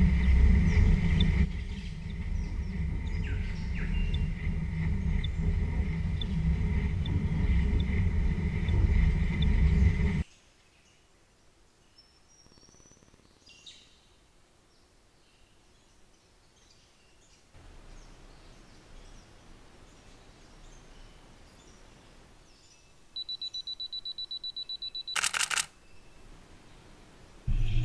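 A steady mechanical hum with a low rumble that cuts off suddenly about ten seconds in, leaving quiet outdoor ambience with a few faint bird chirps. Near the end a fast-pulsing high electronic tone lasts about two seconds, followed by a single sharp click.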